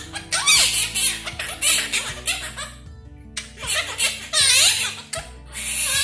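Quaker parrots chattering in quick, high, warbling bursts over background music.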